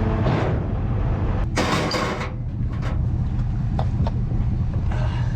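A heavy diesel engine running steadily at idle, with a short burst of noise about a second and a half in.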